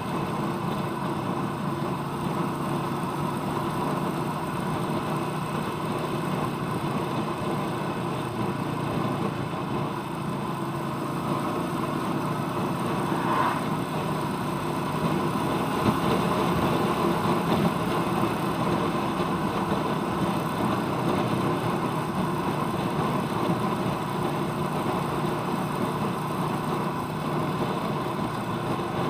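Royal Enfield Meteor 350's single-cylinder engine running steadily while the motorcycle is ridden, with a brief, brighter sound about halfway through.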